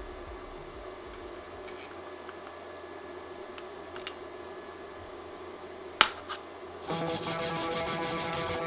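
Aviation snips cutting thin sheet metal: a few small snips, then one loud sharp snap about six seconds in. Near the end a louder rapid rasping starts, a file worked along the cut edge.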